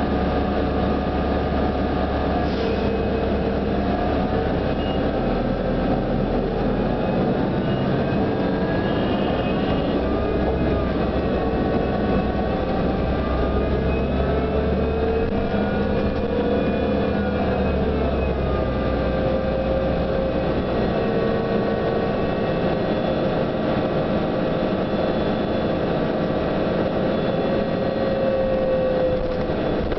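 Inside a New Flyer DE42LFA diesel-electric hybrid bus under way: steady drive and road noise with several whining tones that rise and fall in pitch as the bus changes speed. This is the bus's unusual, unique-sounding whine. A low hum underneath drops away about two thirds of the way through.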